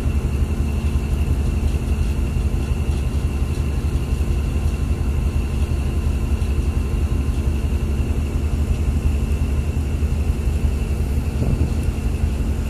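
Boat engine running steadily, heard on board: a continuous low drone with a faint, steady high whine above it.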